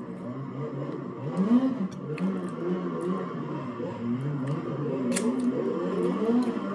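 Someone eating chicken with their fingers: wet mouth clicks and finger-licking smacks, the sharpest about five seconds in, over a continuous low, wavering hum-like voice.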